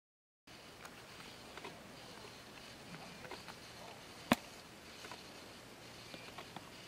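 Faint outdoor background with scattered small rustles and ticks, and one sharp click about four seconds in. The sound cuts in half a second in, after silence.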